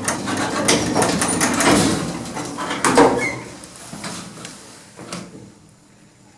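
Lift doors sliding and closing, with clatter and knocks; the loudest knock comes about three seconds in. The surrounding noise falls away after about five seconds, leaving a quiet background.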